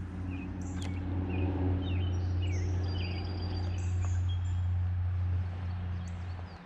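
Birds chirping and singing, short gliding high notes scattered throughout, over a steady low rumble.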